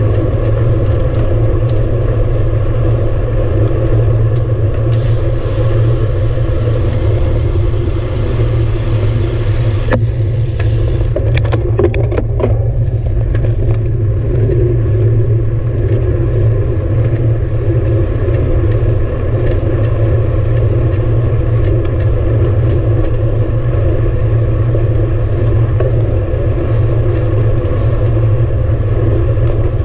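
Steady wind and road rumble on the microphone of a camera riding along on a road bicycle. A band of hiss comes in about five seconds in and stops near ten seconds, followed by a quick run of sharp clicks.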